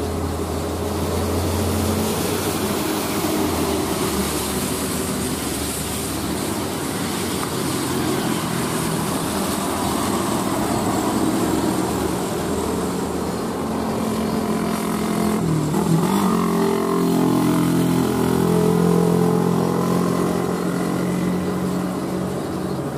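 Diesel engine of a Hino 500 dump truck loaded with sand, pulling hard up a hill, over the hiss of tyres on a rain-soaked road. About two-thirds of the way through, the engine note briefly drops, then rises and grows louder as the truck nears.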